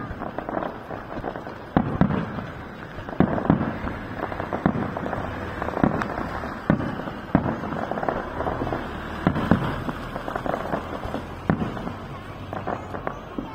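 Fireworks display: aerial shells bursting in the sky one after another, a sharp bang about every second, over a continuous rumble of lesser bangs and echoes.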